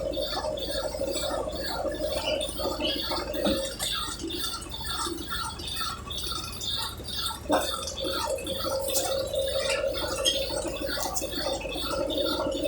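Brastemp Ative 11 kg washing machine running its spin program: a steady motor hum with irregular gurgling water. The hum stops about three seconds in and starts again with a knock a few seconds later.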